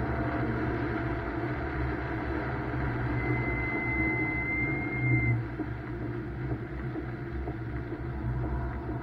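BMW M2's turbocharged straight-six running under load, heard from inside the cabin, with tyre and road noise from the wet track. A thin, steady high whistle sounds for about two seconds starting around three seconds in. The engine gets quieter about five and a half seconds in.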